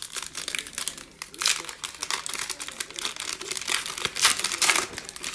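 Foil wrapper of a Panini Mosaic Fast Break basketball card pack crinkling and crackling as it is torn open by hand, loudest about four seconds in.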